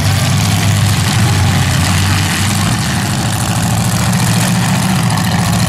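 Several demolition derby cars' engines running at once, a loud, steady low drone.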